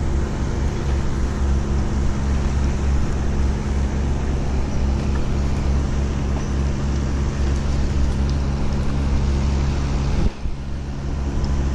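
Steady low engine hum, with a short dip about ten seconds in.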